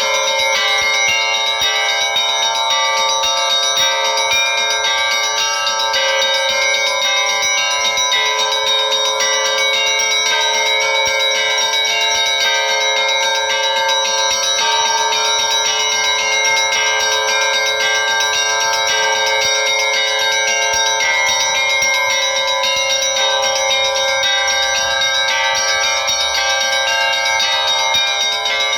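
Russian Orthodox church bells rung by hand in a continuous peal: rapid, dense strikes of several bells over the steady ringing of their overlapping tones.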